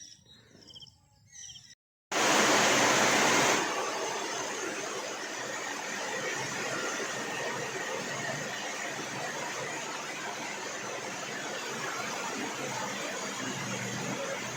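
Heavy rain falling steadily, a dense even hiss. It is loudest for about a second and a half just after it begins, then settles.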